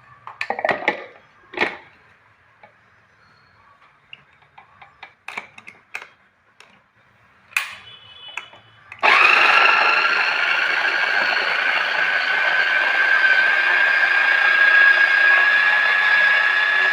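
A few light clicks and knocks, then about nine seconds in an electric mixer grinder starts up and runs steadily with a high whine that slowly rises in pitch. It is grinding mustard seeds, ginger, garlic and green chili with a little water into a paste.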